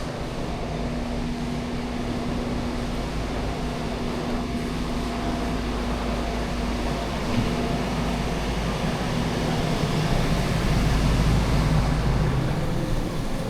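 Steady low rumble and hum of a docked cruise ship's machinery and ventilation, with a steady tone that fades out about seven seconds in and the rumble swelling louder near the end.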